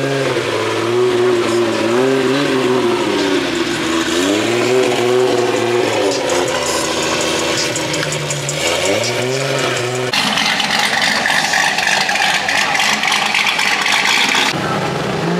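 A 2JZ-swapped Lamborghini's engine revved several times, its pitch rising and falling with each blip. About ten seconds in, this gives way abruptly to a harsh, hissing noise that stops suddenly some four seconds later.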